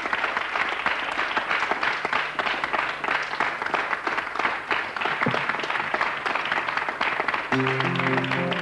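Studio audience applauding steadily. About a second before the end, a guitar starts playing sustained notes over the clapping.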